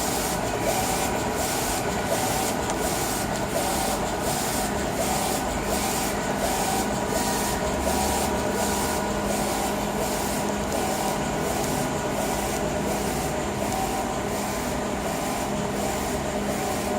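Chinese eco-solvent wide-format printer running as it prints: a steady mechanical whir with a regular pulse about twice a second.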